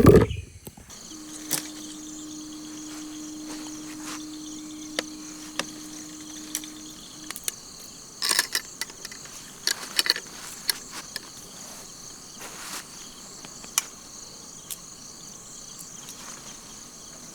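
Forest insects chirring in a steady high chorus. A thump right at the start, a steady low hum for several seconds early on, and a few scattered clicks and knocks.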